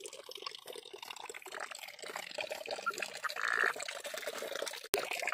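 Water trickling and pouring steadily from a tank overflow into a stone cistern. About three seconds in, a frog gives one short croak.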